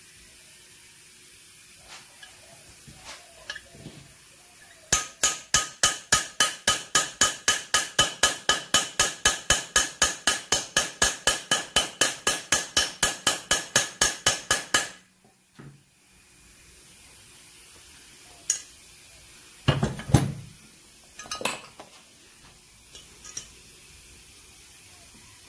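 A hammer tapping on metal in a quick, even run of about forty strokes, some four a second, each one ringing, stopping abruptly after about ten seconds. A few separate metal knocks and clanks follow.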